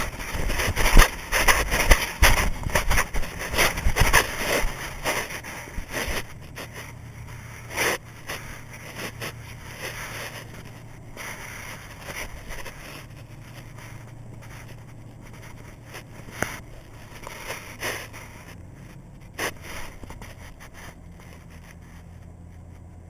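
Loud irregular knocks, scrapes and rumbling for the first several seconds, then a steady low hum of a fishing boat's engine running, with a few sharp clicks now and then.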